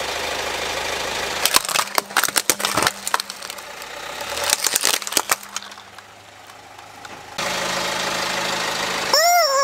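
Car engine idling while a tyre rolls over plastic toy robots, cracking and crunching them in a run of sharp snaps over a few seconds. Near the end a rubber chicken toy gives one short squawk that rises and falls in pitch.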